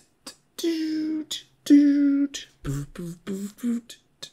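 A man beatboxing: sharp hissing and clicking strokes between two held hummed notes, then a quick run of short hummed notes near the end.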